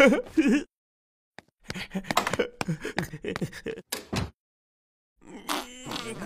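Cartoon characters' wordless vocal sounds: short moans, gasps and grunts in broken bursts, with pauses about a second in and again about four seconds in.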